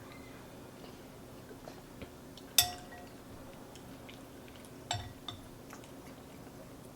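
A spoon clinking against a soup bowl a few times, the sharpest ringing clink about two and a half seconds in.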